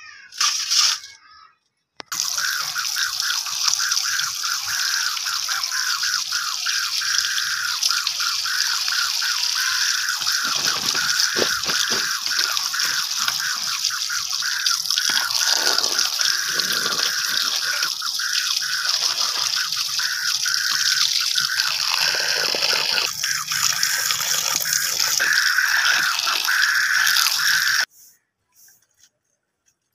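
Running water splashing onto chopped potatoes in a plastic colander and onto chopped spinach in a steel bowl as they are rinsed by hand. A steady splashing that starts suddenly about two seconds in and cuts off suddenly near the end.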